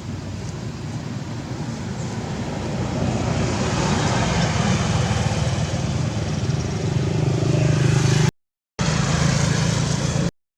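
A motor vehicle's engine running close by. Its noise grows louder over the first few seconds and settles into a steady low drone. The sound cuts out completely twice for about half a second.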